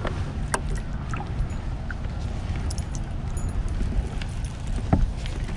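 Low wind rumble on the microphone and water lapping at a kayak's hull. A few light knocks come through, one about half a second in and two near the end.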